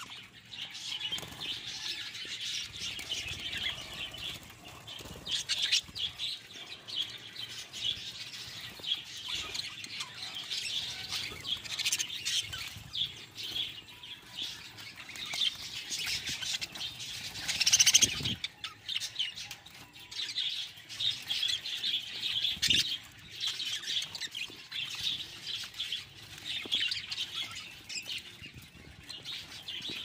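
A flock of budgerigars chattering and chirping continuously, with wing flutters and small clicks as they jostle over their food. One louder sudden sound stands out about 18 seconds in.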